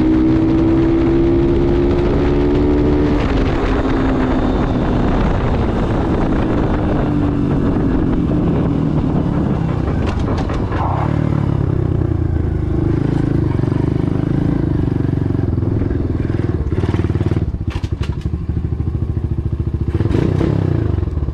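Apollo Z20 pit bike engine running under throttle on a test ride, its pitch rising steadily for about three seconds, then dropping and wavering. The carburetor needle clip has been lowered one notch to richen a lean bog at half to three-quarter throttle, and the bog is not fully cured.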